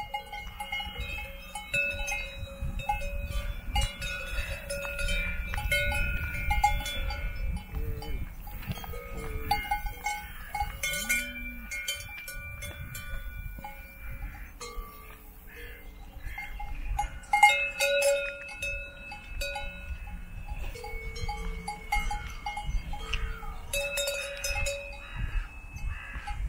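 Cowbells on grazing cows' collars clanking irregularly as the cows move, several bells ringing at different pitches.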